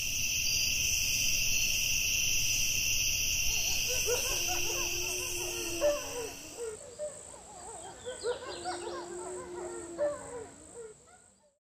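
Night-time insect chirring, like crickets, runs steadily and stops about two-thirds of the way through. From about four seconds in, warbling calls that rise and fall join it, with two long, steady low tones. Everything fades out near the end.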